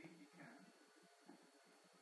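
Near silence: faint room tone, with a thin steady high whine throughout.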